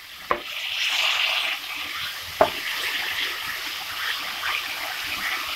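Garlic paste, green chillies and cumin sizzling in hot oil in a wok. The sizzle is loudest about a second in and then settles, with two sharp ticks along the way.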